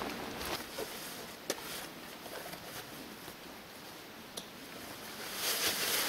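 Faint outdoor hush with a few small sharp clicks, then, about five seconds in, louder rustling of a jacket and backpack straps as a hiker's pack is slipped off the shoulders.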